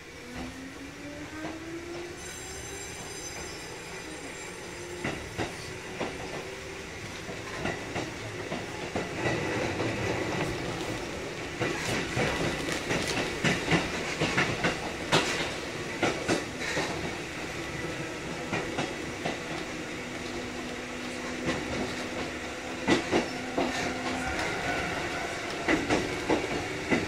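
Kotoden 1080 series (ex-Keikyu 1000 series) electric train running, its motor hum rising in pitch in the first seconds as it picks up speed. The wheels knock over the rail joints, often in pairs, and the run grows louder as it goes.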